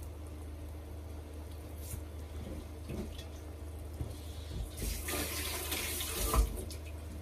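Kitchen tap running into the sink for about two seconds, starting about five seconds in, with a few clicks and knocks and one sharp knock near the end of the running water.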